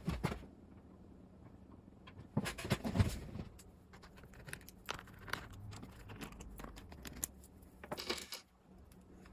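Micro ratchet clicking as small button-head screws are backed out of an aluminium plate, with light metallic clinks and rattles of screws and the tool handled and set down on a wooden bench. The clinking is loudest about two and a half to three seconds in and again about eight seconds in.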